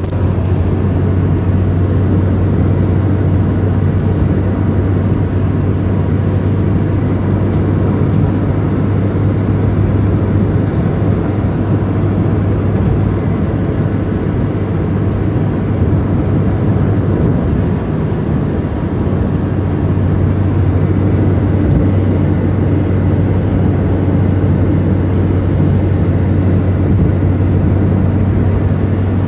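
Steady road and wind noise of a taxi travelling at speed on an expressway, heard from inside the cabin: a constant low rumble with a hiss of rushing air over it.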